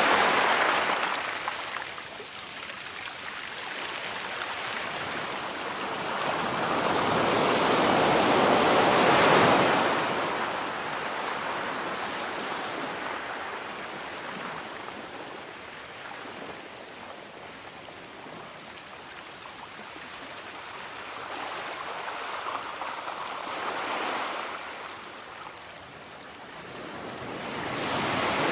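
Ocean surf: waves breaking and washing up in slow surges, each swelling and fading over several seconds, with the strongest wave about a third of the way in and another building near the end.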